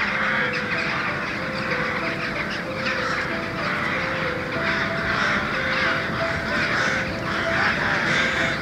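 A large flock of rooks calling together, a dense chorus of overlapping caws, with background music playing a slow melody underneath.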